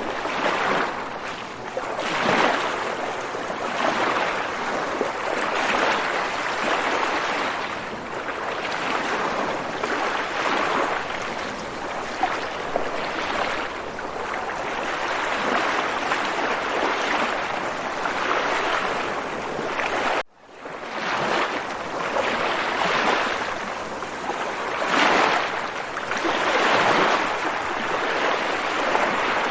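Waves washing, a continuous rush of water that swells and ebbs every second or two. It cuts out for an instant about twenty seconds in, then resumes.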